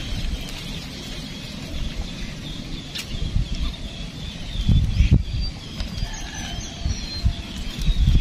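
Rustling of tall grass and weeds with low, irregular buffeting as the camera is carried through the vegetation at the pond's edge, heaviest about 5 seconds in. A sharp click about 3 seconds in, and a few faint bird chirps over a faint steady high hum.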